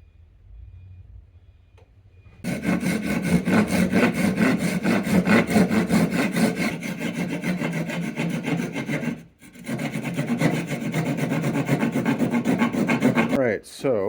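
Rotary tool with a carving bit grinding into 2x4 softwood to shape the fins of a carved figure. It starts about two seconds in, runs steadily with a brief pause about nine seconds in, and stops near the end.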